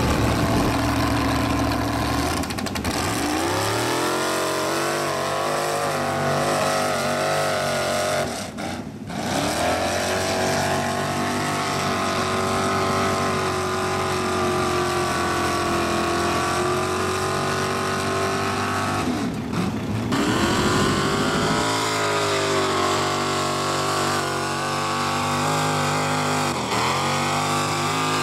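Mud-bog truck engines revving hard under load through deep mud. The pitch climbs steadily, then drops off sharply and picks up again, about nine and twenty seconds in.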